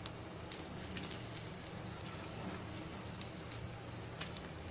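Whole spices and grated coconut dry-roasting in a pan, giving a few faint, scattered crackles over a steady low hum.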